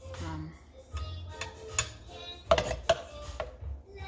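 Background music with held notes, with several sharp clinks and knocks of utensils against dishes and the blender jar in the second half.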